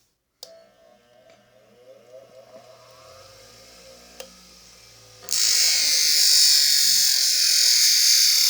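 A small welder being switched on: a click, a faint hum, then about five seconds in a loud steady hissing noise starts suddenly and keeps going.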